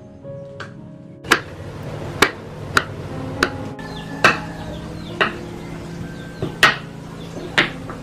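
Kitchen knife chopping chicken feet on a wooden cutting board: about nine sharp chops at an uneven pace, roughly one a second, starting about a second in.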